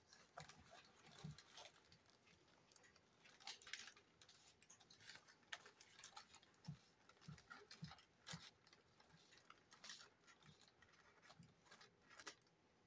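Faint, scattered chewing and mouth clicks of someone eating a sub sandwich, with a few soft low thumps.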